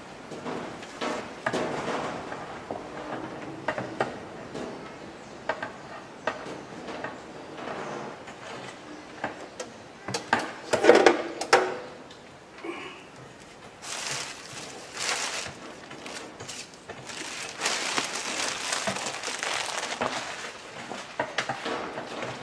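Clear plastic packaging bags crinkling and rustling as small tools are unwrapped and handled, with scattered clicks and knocks of the tools being picked up and set down. The loudest knocks come about halfway through, and the rustling is thickest in the second half.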